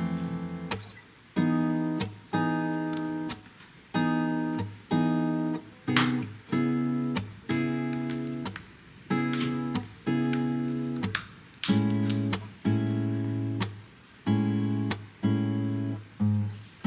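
Background music: acoustic guitar chords strummed at a steady pace, about one a second, each ringing and fading before the next.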